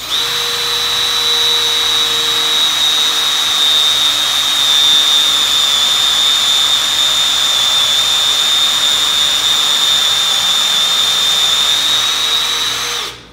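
Electric drill running steadily at high speed, boring a mortise into a wooden chair leg through a long bit held in a drilling guide, with a steady high whine. It starts at once and runs down just before the end.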